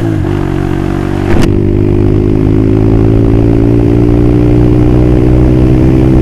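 Yamaha Scorpio's single-cylinder four-stroke engine running through a short aftermarket Creampie silencer as the bike is ridden along. The exhaust note dips briefly twice in the first second and a half, then holds steady and climbs slowly.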